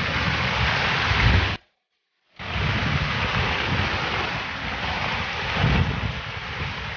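Heavy rain and rushing floodwater, with wind buffeting the microphone in low rumbles. The sound drops out completely for under a second about one and a half seconds in, then carries on.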